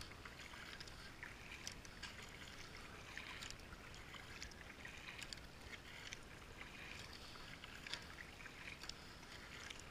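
Kayak paddle strokes: the blades of a double-bladed paddle dipping into and pulling through flat water, heard as faint, irregular small splashes and drips.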